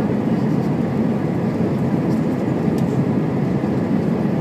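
Airbus A320 cabin noise on approach: the turbofan engines and the rushing airflow heard from a window seat, a steady low rumble with a faint thin tone above it.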